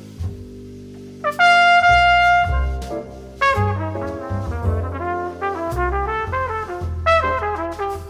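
Background instrumental music: a lead line slides up into one long held note, then plays a quick run of notes over a steady bass line.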